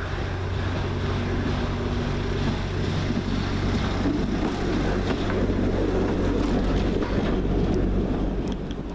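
Class 139 Parry People Mover light railcar running past close by: a steady low engine drone with a rumble that grows louder through the middle and falls away near the end.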